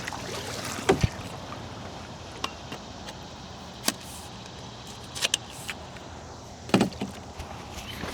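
Canoe being paddled on a river: a steady wash of water, broken by several sharp knocks of the paddle or gear against the hull.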